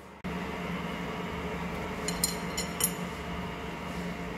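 Ward 2A capstan lathe running with a steady hum, with three sharp metal clinks a little after two seconds in.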